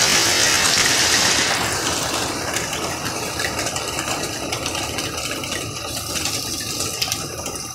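Heavy rain pouring steadily onto a wet road and lawn. The hiss of a car's tyres through standing water fades out in the first couple of seconds.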